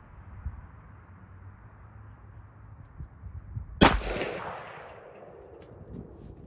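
A single 300 AAC Blackout rifle shot about four seconds in, its report ringing out and fading over about a second. It is a fresh handload that blew its primer, which the shooters take for a load probably too hot.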